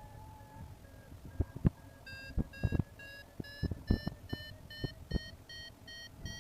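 Paragliding variometer beeping its climb tone: short electronic beeps about three a second, gently rising in pitch, which signals the glider climbing in lift. Scattered sharp clicks or knocks sound among the beeps.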